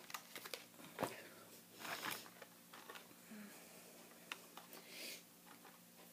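Plastic blister-card packaging handled close to the microphone: scattered small clicks and crinkles, a louder knock about a second in, and short rustles near two and five seconds.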